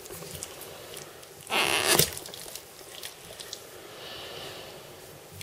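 Kitchen knife cutting into the crust of a roasted stuffed chicken on a plastic cutting board: faint scrapes and small clicks, with one louder rasp lasting about half a second, about a second and a half in.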